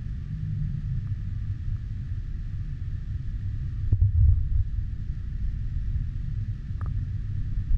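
A low, uneven rumble runs throughout. About four seconds in come two sharp knocks as a car wash spray wand is set into its plastic-pipe wall holder.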